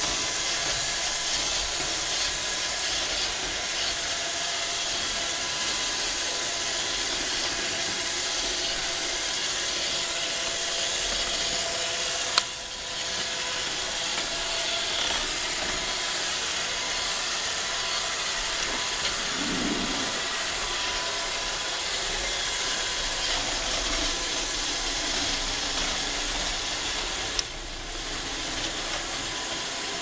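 iRobot Roomba robot vacuum running on a hardwood floor: a steady whir of its vacuum motor and brushes with a faint whine. Two sharp clicks break it, about halfway and near the end.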